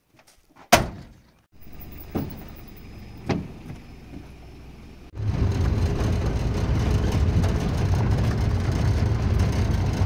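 A pickup truck's door slams shut about a second in, followed by the engine running with two softer knocks. About five seconds in the sound jumps to a louder, steady, rough rumble of the truck driving on a gravel track, engine and tyres on gravel.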